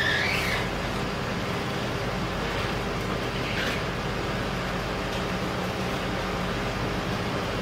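A vehicle engine running steadily at low revs, with a brief high squeal right at the start and another about three and a half seconds in.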